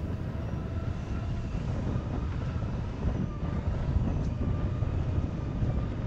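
Segway X2 off-road personal transporter rolling over grass: a steady low rumble from the tyres and wind on the microphone, with faint thin tones above it.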